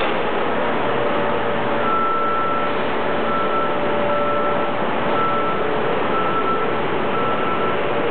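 Engine of a Kershaw rail tie handler running steadily while its grapple swings a railroad tie. From about two seconds in, a backup alarm beeps repeatedly as the machine travels along the track.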